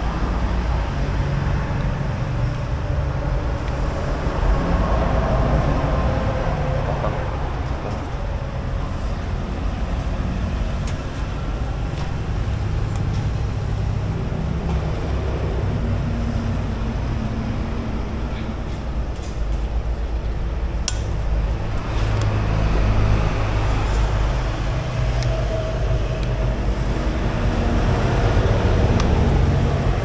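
Steady low background rumble, with a few sharp clicks about twenty seconds in.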